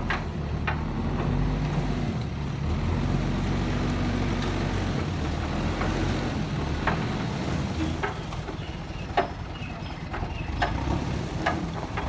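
JCB backhoe loader's diesel engine running steadily, with several short sharp knocks, mostly in the second half.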